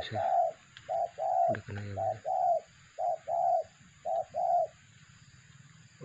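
Spotted doves (terkukur) cooing: repeated two-part coos, a short note followed by a longer one, about one pair a second. The cooing stops about four and a half seconds in.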